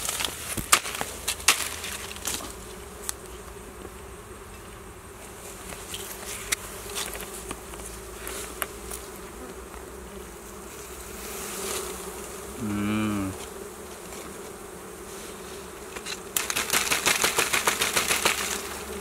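Honeybees buzzing steadily around their exposed comb, with a brief louder hum about two-thirds of the way through. Scattered clicks early on and a fast run of clicks near the end.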